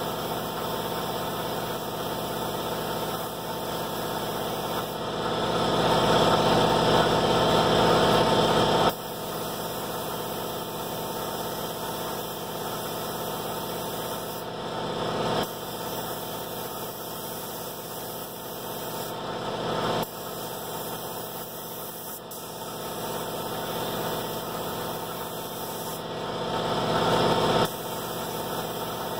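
Air compressor running steadily, with four louder spells of spray-gun air hissing over it as the door jambs are painted. The longest spell lasts about four seconds, and each one cuts off sharply when the trigger is released.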